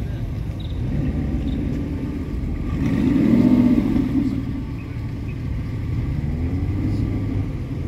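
A car engine passing close by, growing louder to a peak about three and a half seconds in and then fading, over a steady low rumble.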